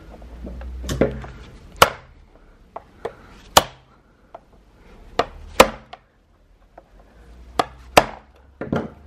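Hammer blows on a screwdriver used as a drift in a plastic stroller wheel's hub, knocking a part out: about eight sharp knocks, several in quick pairs.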